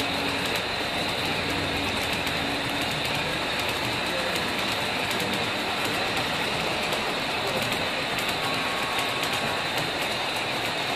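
Model freight train cars rolling past on the layout track: a steady rolling rush, dense with rapid fine clicks from the wheels on the rails.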